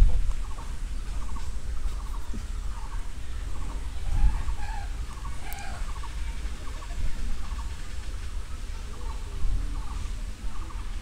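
Domestic fowl clucking in the background: scattered short calls over a steady low rumble.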